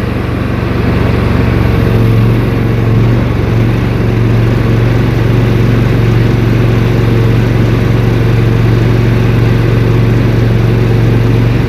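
Gasoline engine of a walk-behind mini skid steer, a Briggs & Stratton Vanguard, running steadily at raised throttle as the machine drives forward pushing snow with its lowered blade. The engine note grows a little stronger about two seconds in.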